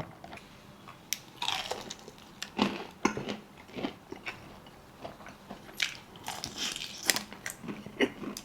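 Close-up sounds of a person biting and chewing fried food, with irregular crunches and wet mouth clicks.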